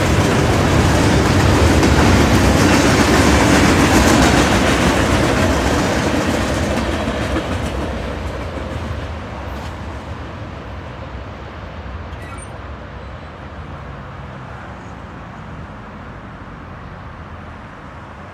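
A loaded coal train's hopper cars rolling past on the rails, a steady heavy rumble that fades steadily from about six seconds in as the last car passes and moves away.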